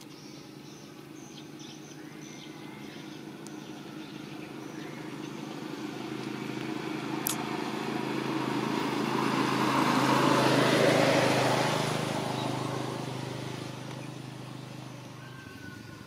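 Small step-through motorcycle engine approaching, passing close about ten seconds in, and fading away.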